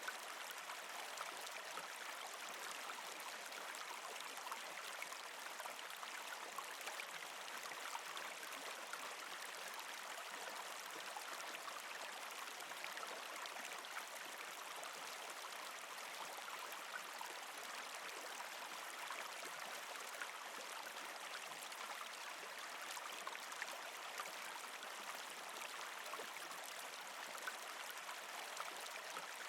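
Mountain stream babbling over rocks: a steady rush of water flecked with small splashes and gurgles.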